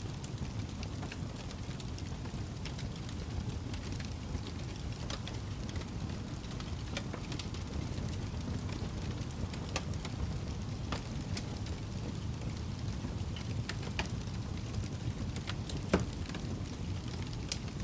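Wood fire burning in a fireplace: a steady low rumble of the flames with scattered sharp crackles and snaps, and one louder pop near the end.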